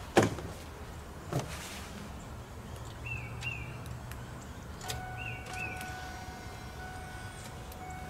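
Two sharp knocks from the cab of a 1999 Ford F-150 pickup, the first much the loudest. About five seconds in there is a click, then a steady high electronic tone sounds from the dash as the ignition is switched on; a bird chirps a few times.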